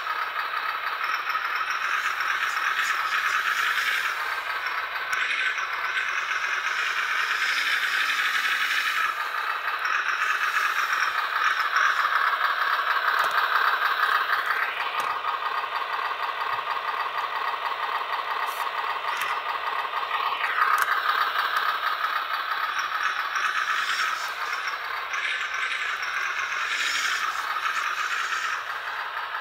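Simulated truck engine sound from an Arduino ESP32 RC sound controller, played through the small speaker mounted on a WPL B36 Ural 4320 model truck. It is thin and rattly with almost no bass, running steadily and rising and falling in pitch a couple of times as the virtual engine revs.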